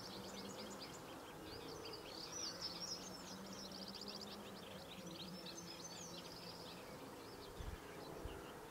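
Faint background birdsong: small birds twittering with quick high chirps and trills, over a low steady hum, with two low bumps near the end.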